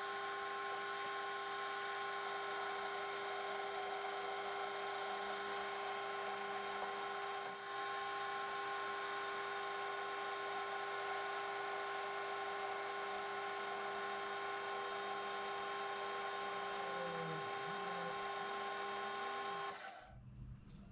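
Metal lathe running with a steady whine while turning an offset point on a shaft held in a 4-jaw chuck. It shuts off about twenty seconds in.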